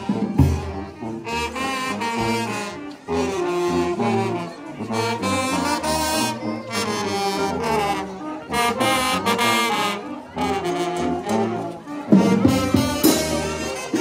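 Oaxacan village brass band playing a melody, with trumpets, trombones and saxophones in harmony; the drums come back in loudly near the end.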